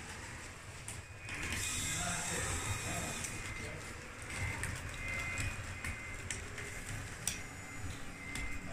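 Radio-controlled Caterpillar D8T model bulldozer crawling over gravel: its drive gears and plastic track links click and rattle, with a high motor whine coming and going.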